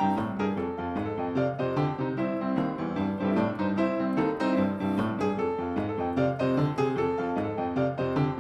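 Piano music: a continuous stream of quick notes played on a piano.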